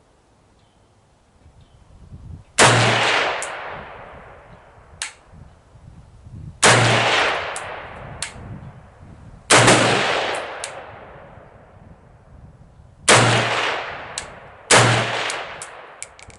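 Five single shots from an AK-pattern rifle firing 7.62x39mm ammunition, spaced a few seconds apart, the last two close together. Each shot is a sharp crack followed by a fading echo, with a few small clicks between shots.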